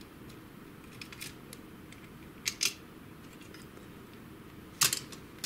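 Light plastic clicks as an HP Smart Tank printer's belt-tensioner pulley holder is worked loose and pulled out of its sheet-metal frame: a few faint ticks about a second in, a quick double click about two and a half seconds in, and a sharper single click near the end.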